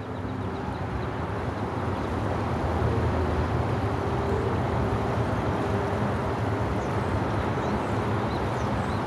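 Steady low rumble of outdoor background noise, even throughout, with a few faint short tones in the middle.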